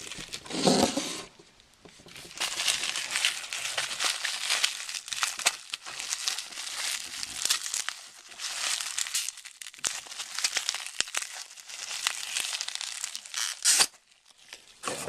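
Paper packaging crinkling and rustling as a small vintage Zippo lighter box is opened and unwrapped by hand, in irregular handling noises with small clicks, louder just under a second in and again briefly near the end.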